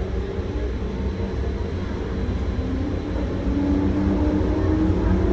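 Taipei Metro Wenhu line rubber-tyred train running, heard from inside the front of the car: a steady low rumble, with a motor whine rising in pitch from about halfway through as the train picks up speed.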